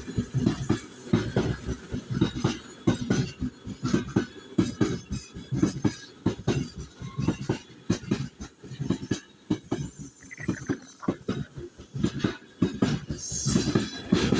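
Train wheels knocking over rail joints: a steady clickety-clack of quick repeated knocks, several a second.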